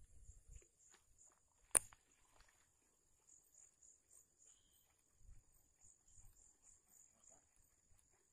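Faint, high-pitched insect chirping that pulses a few times a second, with one sharp click about two seconds in and a few soft low thumps.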